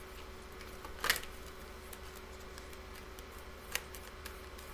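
Quiet room tone with a faint steady hum, broken by two short clicks: a louder one about a second in and a softer one near the end.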